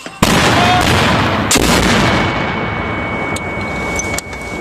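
Mortar firing: the round dropped down the tube goes off with a sudden loud blast a moment in, followed by a long fading rumble and another sharp bang about a second later.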